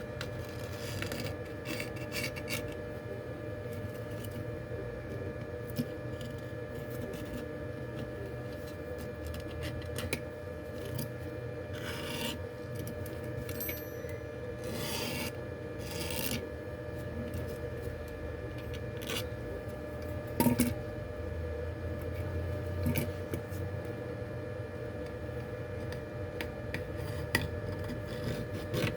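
Scraping and rubbing of repair tools working on a phone's glass and frame, in short, irregular strokes, over a steady electrical hum. A brief knock, the loudest sound, comes about twenty seconds in.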